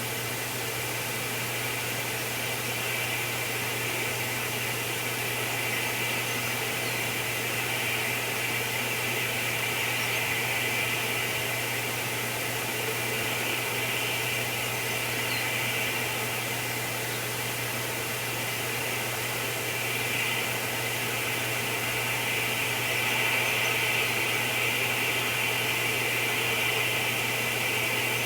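Steady hiss with a constant low hum, unchanging throughout: the background noise of a live nest camera's outdoor microphone.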